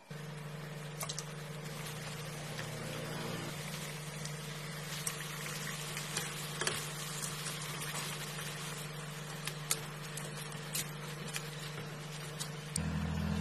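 Wontons deep-frying in a pan of hot oil: a steady sizzle with scattered sharp pops and crackles. Under it runs a steady low hum that grows louder near the end.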